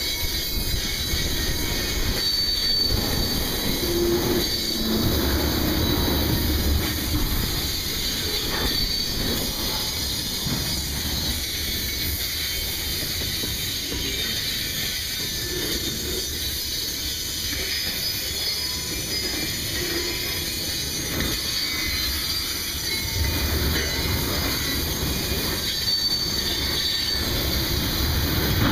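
Railroad tank cars of a freight train rolling past close by: a steady rumble of steel wheels on the rails, with brief high-pitched wheel squeals now and then.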